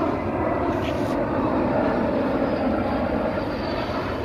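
Airplane engine roar from an airshow aircraft flying overhead, steady and loud.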